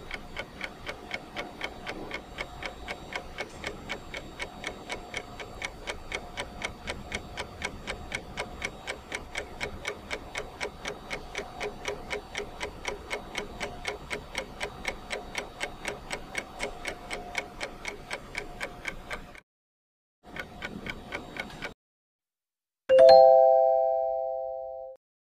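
An even, clock-like ticking over a faint held tone. It stops about 19 seconds in and briefly returns. Near the end a loud chime rings with several pitches and fades away.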